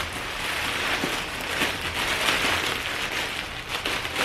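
Plastic packaging crinkling and rustling as garments in poly bags are handled, a dense, irregular crackle.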